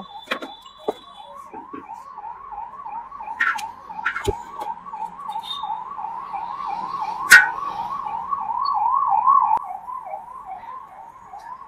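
A siren sounding in a rapid, even rise-and-fall yelp, swelling in the second half and fading near the end. A few sharp clicks cut through it, the loudest about seven seconds in.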